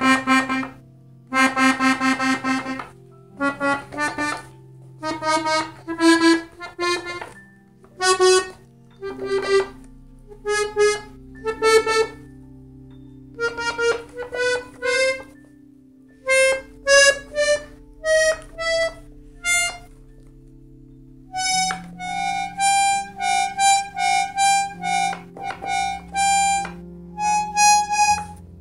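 Piano accordion played one treble key at a time: reedy single notes climbing step by step up the keyboard, then a quicker run of higher notes over held bass tones in the last few seconds. The keys are being checked after a broken key spring was replaced.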